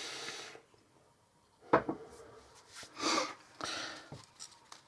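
Small parts of a disassembled folding knife being handled and set down: a sharp click a little under two seconds in, soft rustling and scraping, and a few light ticks near the end, with a breath close to the microphone at the start.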